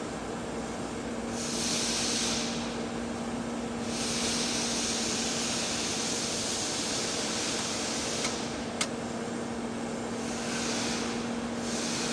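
TIG welding arc hissing steadily over a constant low hum, the hiss swelling and easing a few times. One sharp click about nine seconds in.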